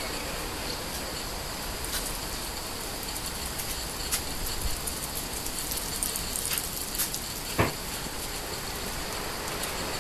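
Steady rushing ambience of the sea and wind, with scattered faint clicks and one sharper click about seven and a half seconds in.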